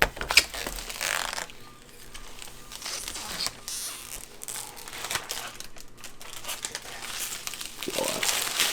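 Irregular crinkling and rustling handling noises, with a couple of sharp clicks about the first half-second in.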